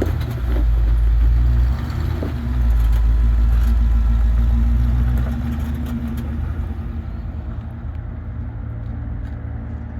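Off-road truck engine running, swelling to a louder, deep rumble in two stretches of a second or more before easing back to a steadier, lower run.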